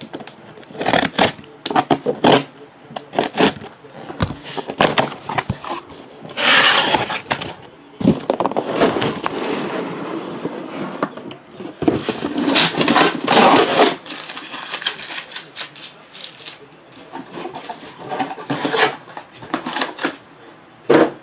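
A cardboard shipping case being opened by hand, and shrink-wrapped card boxes slid out and stacked. Cardboard and plastic scrape and rustle in irregular bursts, with a sharp knock near the end.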